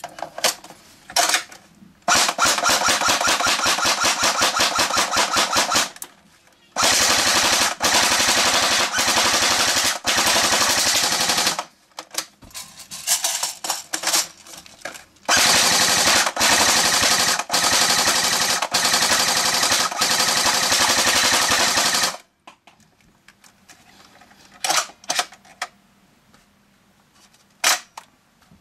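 S&T Tavor TAR-21 airsoft electric gun (AEG) on a 7.4 V LiPo battery firing full-auto: three long bursts of about four to six seconds each, a rapid even clatter of shots. Short bursts come between them, and single shots near the start and the end.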